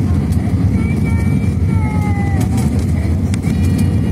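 Steady low cabin roar of an Airbus A320-family airliner on approach for landing: engines and rushing airflow as heard from a window seat inside the cabin.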